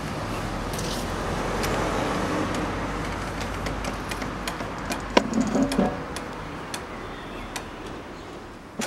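A door handle clicks and the glass entrance door squeaks as it swings open about five seconds in, over a steady hum of street noise with scattered small clicks.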